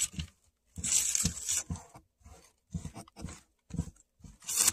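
Paper crinkling and rustling in irregular bursts as a frame covered in crumpled paper is handled and turned.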